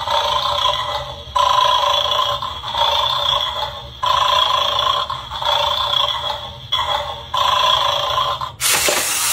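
An electronic ringing tone repeating in pulses about a second and a half long with short gaps, then a short burst of hiss near the end.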